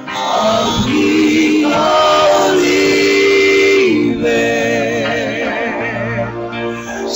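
Choir singing a church worship song, with long held notes and vibrato.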